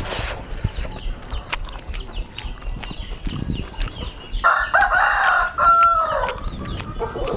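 A rooster crows once, a single call of about two seconds starting a little past the middle. Small sharp clicks are heard throughout.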